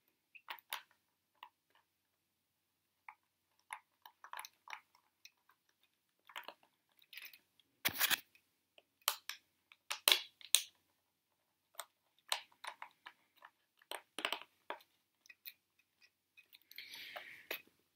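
Thumb screws being turned back in by hand to fasten the top onto a NuEVI electronic wind instrument's case: irregular small clicks and scratchy rasps, loudest around 8 and 10 seconds in.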